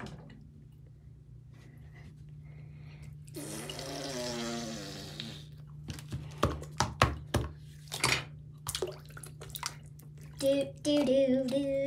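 Water splashing in a bathroom sink as a plastic toy dinosaur and a plastic net are dipped and moved through it, with a run of sharp knocks against the basin in the middle. A child's voice makes a drawn-out sound effect a few seconds in and again near the end.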